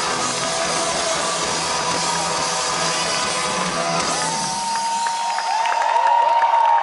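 Live rock band with electric guitars, bass and drums playing loud through the festival PA. About four seconds in the band stops and the crowd cheers and whoops.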